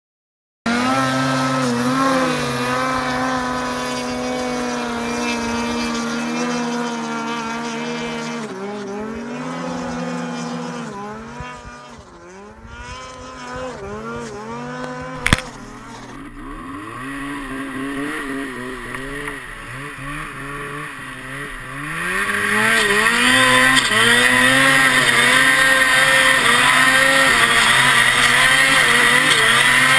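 Snowmobile engines revving up and down under load as sleds climb a steep snow chute, with a sharp click about halfway. About two-thirds of the way in the sound becomes louder and closer, a single sled's engine revving hard from on board.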